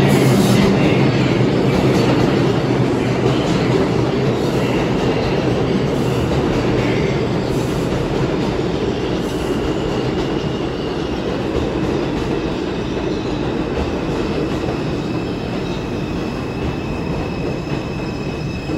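New York City Subway train running on the track, a loud steady rumble of wheels and cars that slowly fades. A thin, steady high tone comes in about halfway and holds.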